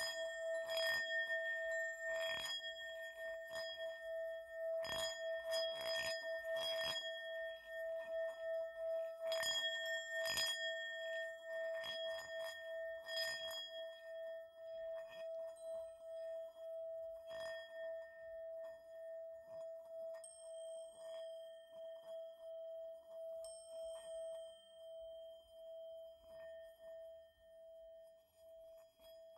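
Ambient electronic music: a single held ringing tone, like a singing bowl, under scattered clicks and taps that are dense at first and thin out about halfway through, the whole fading away toward the end.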